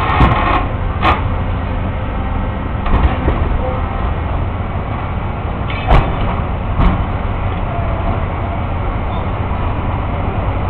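Excavator's diesel engine running steadily with a low rumble, broken by a few sharp knocks from the machine at work. The loudest knock comes about six seconds in, with another a second later.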